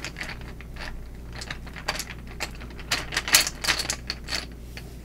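Small paper word cards being shuffled and handled: irregular clusters of quick clicks and rustles, busiest about three to four seconds in and dying away near the end.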